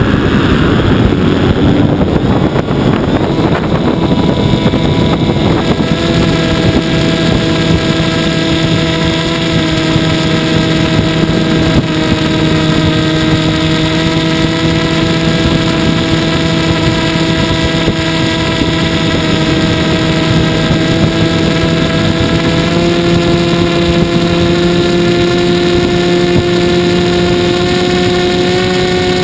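Model airplane's motor and propeller in flight, heard from the onboard camera: a steady buzzing drone under wind rush over the microphone. The drone's pitch creeps up and steps higher about two-thirds of the way through.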